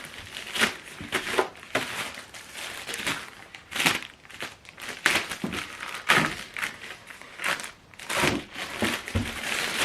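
Paper and cardboard packaging being handled and crinkled while unpacking a product: irregular rustling, crackling and crumpling, with a few sharper crackles.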